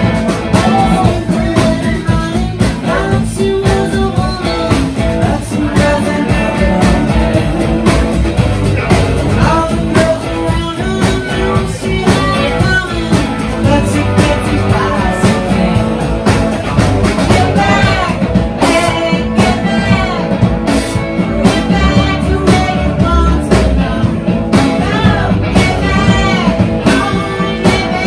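A small live band playing: fiddle, electric guitar and drum kit, with a voice singing over them in the latter part.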